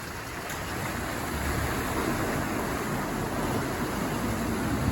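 Car driving through a flooded ford: water rushing and splashing against the wheels and body over the low running of the engine, growing louder through the first couple of seconds.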